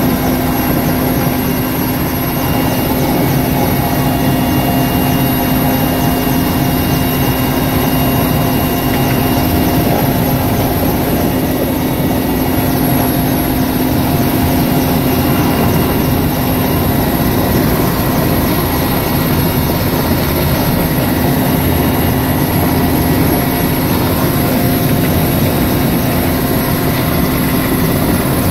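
Heavy twin-turbine transport helicopter heard from inside its cockpit, hovering and manoeuvring low with an external sling load. Steady turbine and main-rotor noise, a constant deep hum with a thin high turbine whine over it, unchanging throughout.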